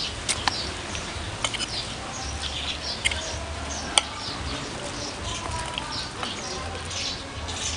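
Close-miked chewing and crunching of food, many small crackles, with a few sharp clicks of a metal spoon and fork against the plate, the loudest about four seconds in.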